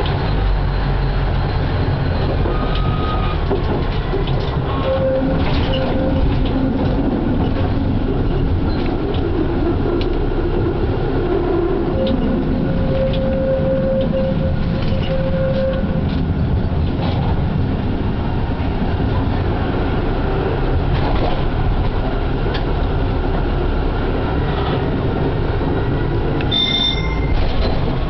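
Konstal 105NCh tram running along its track, heard from the driver's cab: a steady rumble of wheels on rails with light clicks from the track, and a hum from the running gear. A short high squeal comes near the end.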